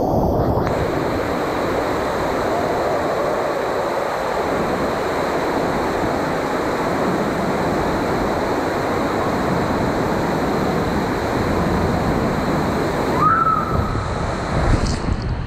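Steady rush of water and air as an inflatable raft slides down an enclosed water-slide tube, with splashing near the end as the raft comes out into the pool.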